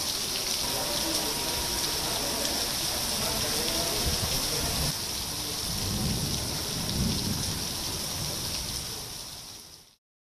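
Heavy rain pouring onto a paved road, a steady hiss of falling water, with a low rumble swelling about six seconds in. It fades out just before the end.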